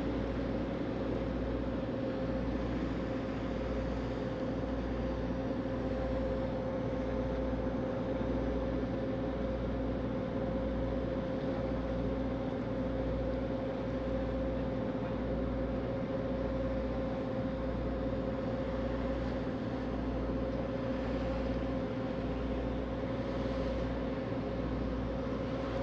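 A ferry's diesel engines droning steadily while under way, a constant hum with a low, even throb beneath it.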